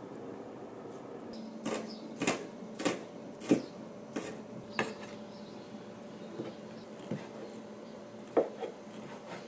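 Kitchen knife slicing garlic cloves on a plastic cutting board: about six crisp, evenly spaced chops, roughly two a second. Near the end come a few sparser knife strokes through fish cake on a wooden board.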